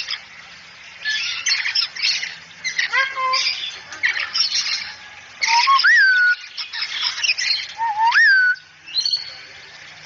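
A cockatoo squawking in short harsh screeches, with two whistled notes that rise and then fall, about six and eight seconds in.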